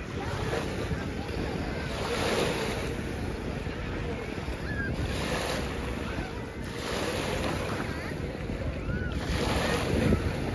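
Small lake waves lapping in the shallows, swelling and easing every few seconds, with wind buffeting the microphone.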